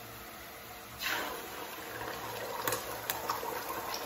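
Beaten eggs poured into a small pan of hot fat, starting to sizzle and fry about a second in, with a few light clicks of the bowl against the pan.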